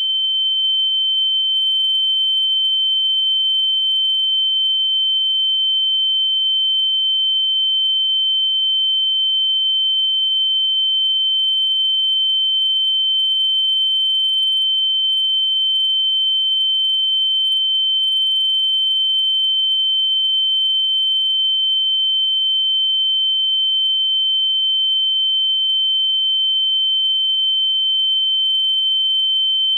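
A single steady high-pitched sine tone, one unchanging pitch held without a break, like an electronic test tone.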